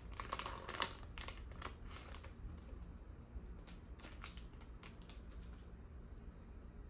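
Crinkling and rustling of a foil trading-card pack wrapper as it is opened and the cards are handled: a run of short crinkles that dies away after about five and a half seconds.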